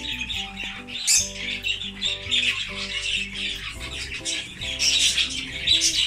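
A flock of budgerigars chattering and chirping in quick, overlapping calls, over background music.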